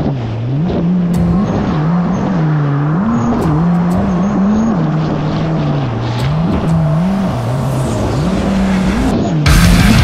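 Yamaha GP1800R SVHO jet ski's supercharged four-stroke engine running hard through choppy waves, its pitch rising and falling every second or so over a rush of water and spray. Loud rock music cuts in suddenly near the end.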